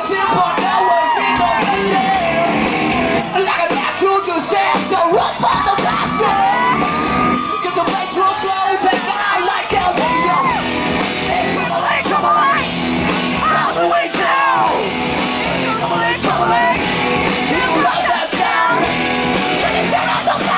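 Live rock band playing loudly with shouted and sung vocals, heard through a concert audience's recording.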